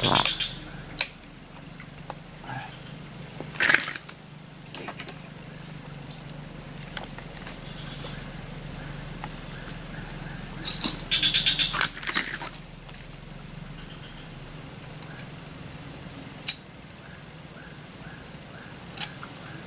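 Steady high-pitched drone of forest insects, broken by a few sharp clicks and short rattles.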